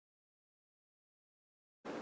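Dead digital silence, then steady outdoor background noise cuts in abruptly near the end.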